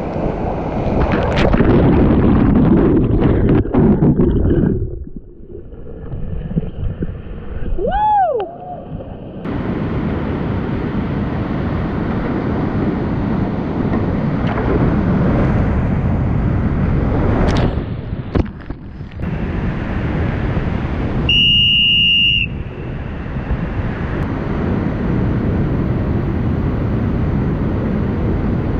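Whitewater rapids rushing around a kayak, with wind buffeting the microphone. About five seconds in the sound goes muffled and thin for several seconds. About two-thirds of the way through a short, high, steady tone sounds for about a second.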